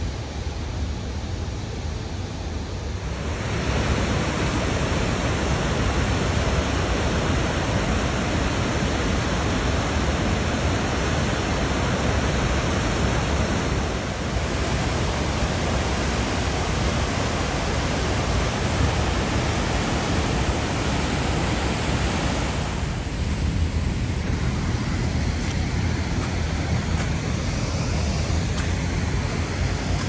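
Steady rushing of a waterfall running high with post-blizzard snowmelt runoff below Waterport Dam, a dense even wash of water noise. It grows louder about three seconds in and eases somewhat in the last quarter.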